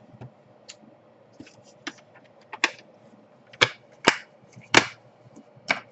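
Irregular sharp clicks and taps of laptop casing and parts being handled and pressed into place during reassembly, about seven in all, the loudest three coming close together in the second half.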